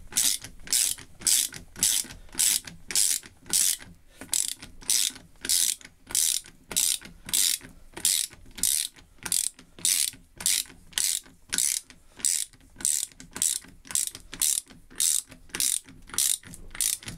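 Ratchet spanner clicking in short rasps, about two or three strokes a second, as it runs a lock nut down onto a bolt that is screwing in easily.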